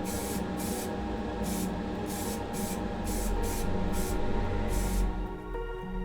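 Short spurts of spray paint hissing as a toy car's plastic wheels are sprayed, stopping about five seconds in. Background music plays underneath.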